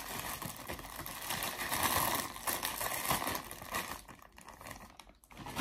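Clear plastic packaging bag crinkling as it is handled and pulled open, stopping about four seconds in.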